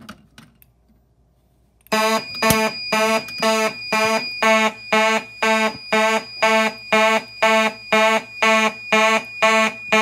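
Two 1990s Simplex mechanical fire alarm horns go into alarm about two seconds in, after a pull station is key-activated. They buzz in march-time pulses, about two blasts a second.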